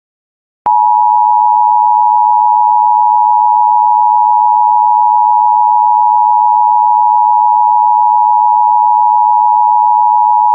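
Emergency Alert System attention signal: a loud, steady two-tone beep near 1 kHz, held for about ten seconds from just under a second in and then cut off. It is the alert tone that announces an emergency warning broadcast.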